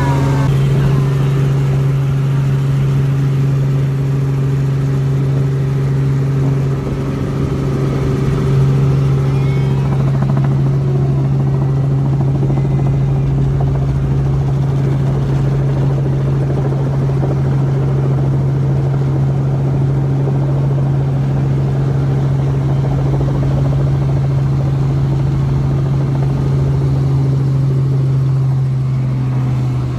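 Steady engine and rotor drone of a light helicopter, heard from inside the cabin, running through the landing and on the ground. There is a short dip in level about seven seconds in.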